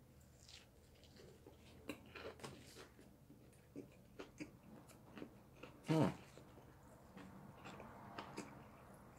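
A person chewing a mouthful of crispy fried chicken sandwich, with faint scattered crunches and mouth clicks. About six seconds in comes a short "mm" hum that falls in pitch.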